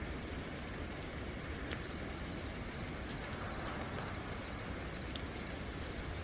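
Steady night rain falling, with crickets trilling continuously at a high pitch and a few faint ticks of single drops.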